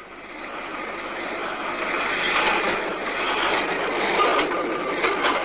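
A tram passing close by: an even rolling rumble that builds over the first two seconds and then stays loud, with a few sharp clicks from the wheels on the track.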